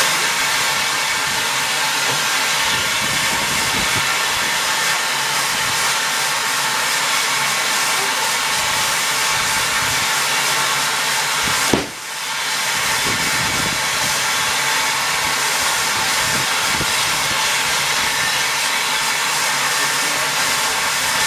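Steady hiss of steam escaping from an SECR H-class 0-4-4 tank locomotive standing in steam. About halfway through there is one sharp knock, after which the hiss dips briefly.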